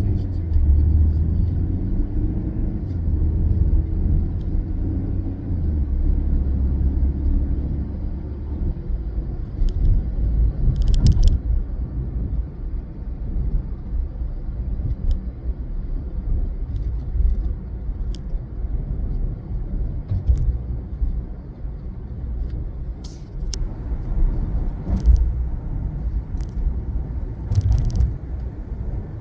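Ford Fiesta SE hatchback driving: a steady low rumble from its four-cylinder engine and the road, with a heavier engine hum for the first several seconds. A few short clicks and ticks come about eleven seconds in and again near the end.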